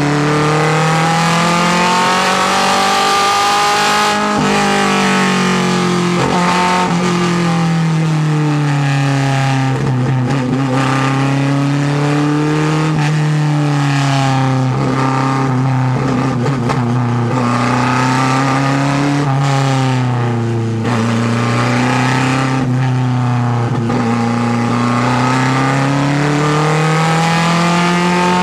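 Lancia Fulvia HF F&M barchetta's narrow-angle V4 engine under racing load, heard from the open cockpit. The revs climb, drop and climb again over and over through the bends, with a sudden drop about four seconds in.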